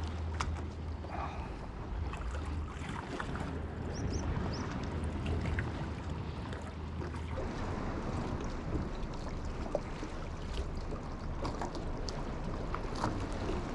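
Seaside fishing ambience: wind on the microphone and water, with a steady low hum that fades away about eight seconds in and scattered small clicks of handled fishing tackle.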